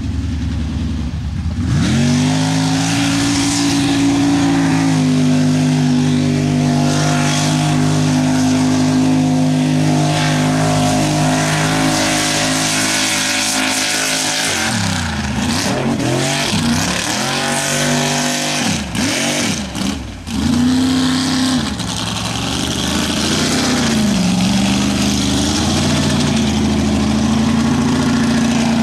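Chevy mega mud truck's engine held at high revs as it pulls through the mud bog, with tyres throwing mud. Around the middle the throttle is blipped up and down several times, then the engine is held at high revs again.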